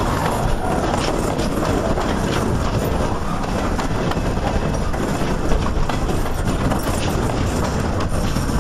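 Loaded flatcars of a long freight train rolling past close by: a steady rumble of steel wheels on the rails, with occasional faint clicks and knocks.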